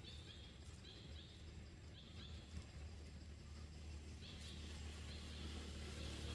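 Faint outdoor ambience: short high chirps repeating every half second to a second, over a low steady rumble that grows louder in the last couple of seconds.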